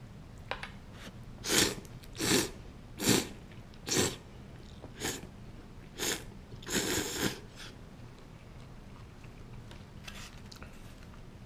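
A person slurping ramen noodles: a series of about seven short, loud, hissing sucks roughly a second apart, ending in one longer slurp about seven seconds in.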